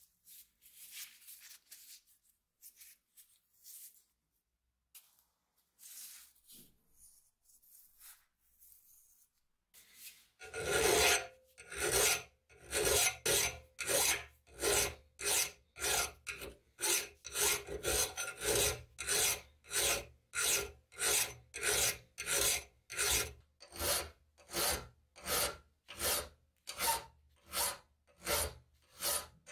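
A few faint rustles, then from about ten seconds in, a hand file rasping back and forth across a rusty steel cleaver blade clamped in a vise, in steady strokes about two a second.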